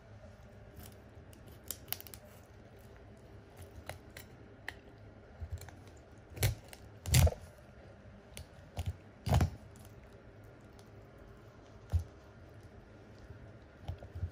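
Deba knife cutting down through a black sea bream's head, splitting the upper jaw: a series of sharp crunches and cracks as the blade goes through bone, the loudest between about six and nine and a half seconds in, with scattered lighter clicks.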